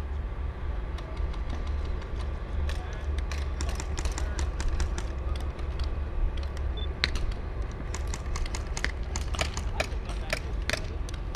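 Scattered sharp snaps of airsoft guns firing across the field, irregular and coming in quick clusters, most densely in the second half, over a steady low rumble.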